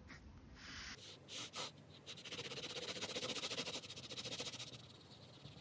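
Water-soluble coloured pencil scribbling quickly back and forth on paper, filling in a colour swatch: faint, rapid, rhythmic scratching strokes from about two seconds in until near the end.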